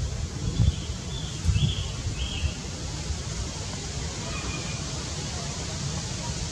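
Steady outdoor hiss with irregular low rumbles in the first couple of seconds, and four short high chirps in quick succession, then a fainter one a little past the middle.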